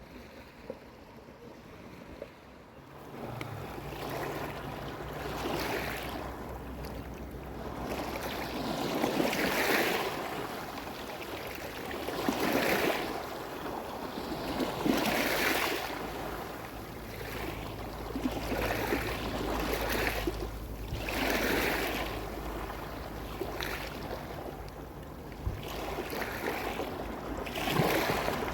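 Surf on a beach: waves washing in, the sound swelling and falling about every three seconds, with a low steady hum underneath.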